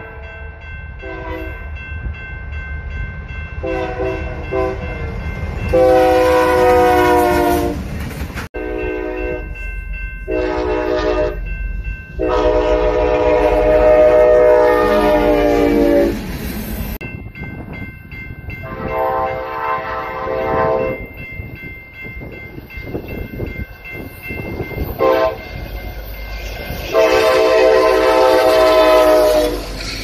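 Union Pacific diesel locomotive air horns sounding a series of blasts, some short and some several seconds long, each a chord of several notes. Under them runs the low rumble of a passing freight train with its cars clacking over the rail joints. A hard edit about 8.5 s in jumps to another train.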